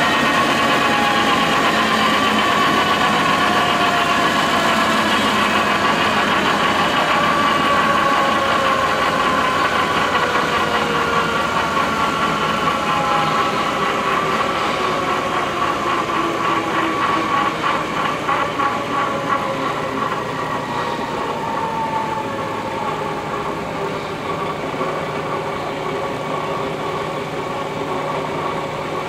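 Wilton 2035 geared-head floor drill press running with no load, a steady motor-and-gear whine. Its tones fall slowly in pitch through the first half, and the sound grows gradually quieter toward the end.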